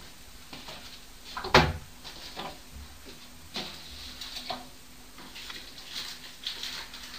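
Household knocks and clatter: one loud sharp bang about one and a half seconds in, then several fainter knocks and clicks.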